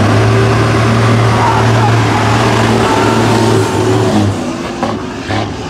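Heavy truck's diesel engine revved hard as it passes close by. It holds a steady high note, then the note breaks up about four seconds in.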